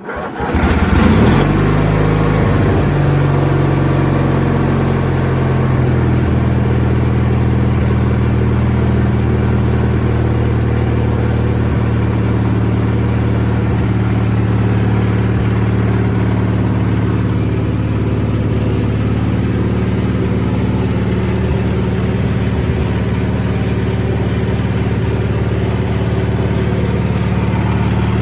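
Craftsman GT18 garden tractor engine started on a little choke, catching right away. Its pitch settles within the first few seconds and it then runs steadily, run to circulate freshly changed oil.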